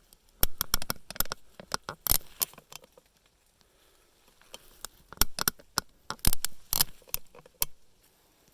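Close handling noise as a camera is moved and repositioned: irregular bursts of sharp clicks, knocks and rustling, one cluster in the first couple of seconds and another from about five seconds in, with quiet between.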